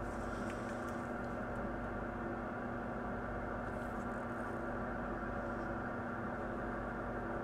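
Steady hum of running workbench electronics: a constant drone made of several fixed tones that neither rises nor falls.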